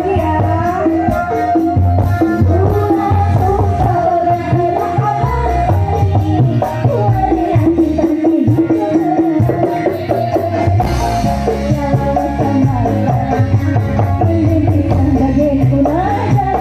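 Live dangdut band playing loud through the stage PA: a singer's melody over kendang-style hand drums and a steady beat, with a rapid rattling percussion running throughout.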